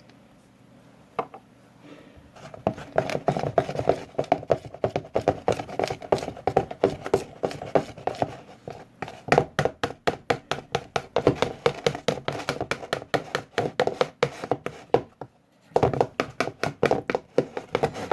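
Homemade slime mixture being stirred in a container: rapid sticky clicks and taps, several a second, starting a couple of seconds in, with a brief pause near the end.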